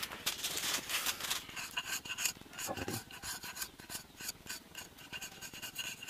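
Small knife blade scraping along a thin strand, many short scraping strokes in quick succession, loudest in the first second and a half.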